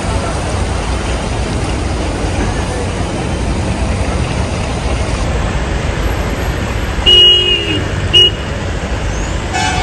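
Road traffic noise, a steady rumble of vehicles. A vehicle horn sounds twice near the end: one short honk, then a quick second toot.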